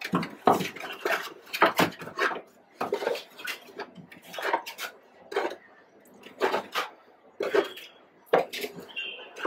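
Spoons scraping and tapping inside foam takeout food containers as two people eat, in irregular short clicks and scrapes.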